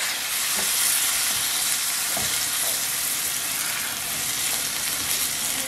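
Seasoned ground beef and onions sizzling steadily in a hot pot, with water just poured in from an upturned pot lid and boiling off against the hot meat. A few faint taps sound in the first couple of seconds.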